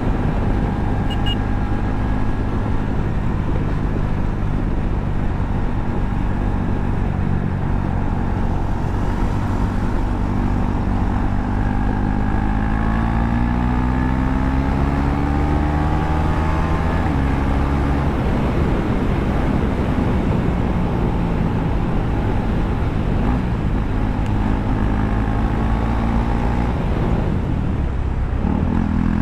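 KTM 390 Duke's single-cylinder engine running without its exhaust muffler while riding at road speed, the note rising and falling with the throttle and gears, over steady wind noise.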